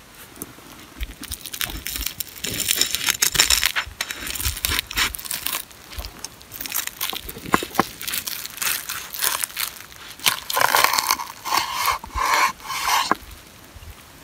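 Toasted burger bun crackling and crunching as the cheeseburger is squeezed by hand and bitten into. A run of quick, repeated crunching strokes near the end is chewing.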